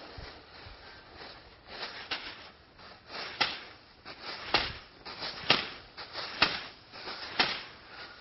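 Plastic bag on the end of a stick rustling and crackling against a walking horse's neck and back, in short sharp crackles about once a second.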